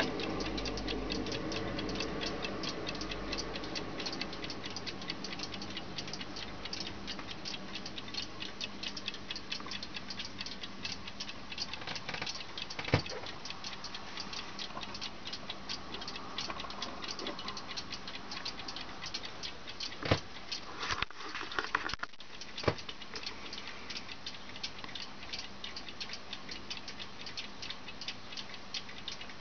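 Kienzle wall clock ticking with quick, even ticks, broken by a few louder single knocks about halfway through.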